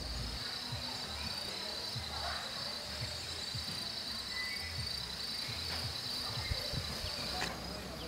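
Chorus of forest insects: a steady, high, pulsing buzz that fades out shortly before the end, with a brief high note about four seconds in.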